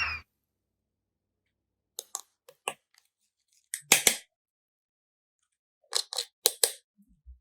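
Short, crisp clicks and rustles of small objects being handled, coming in three brief clusters separated by silence.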